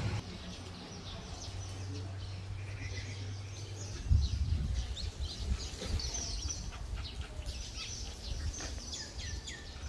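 Small birds chirping, many short high calls one after another. A steady low hum stops about four seconds in, and a low uneven rumble follows.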